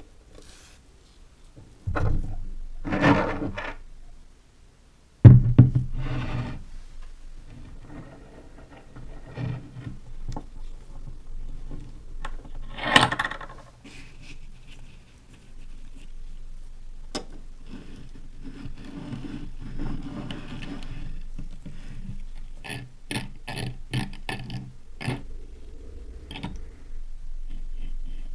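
Knocks, rubbing and scraping as a small rusty brass-and-steel lighter is handled on a wooden bench and clamped in a small bench vise. A sharp knock about five seconds in is the loudest, and a quick run of clicks comes near the end.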